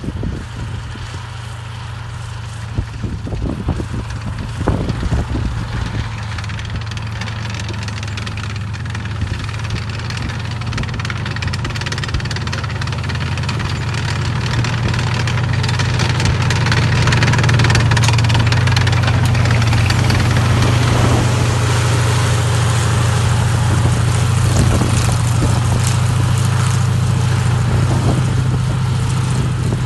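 Sexton self-propelled gun's Continental radial engine running as the tracked vehicle drives, with a strong low drone that grows louder as it approaches and stays loud from about halfway on.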